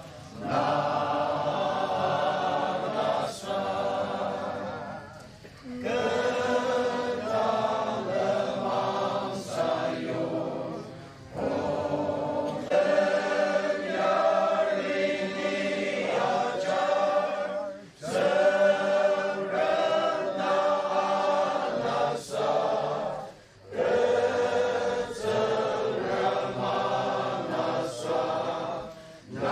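A congregation of men and women singing a hymn together from song sheets, in long held phrases with a short breath break every five or six seconds.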